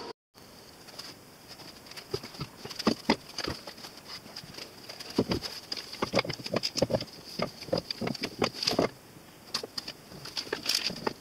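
Ambrosia (wormy) maple end-grain strips knocking and clacking against one another and the clamp bars as they are shuffled and pushed into place by hand, in irregular taps. A faint steady high whine runs beneath.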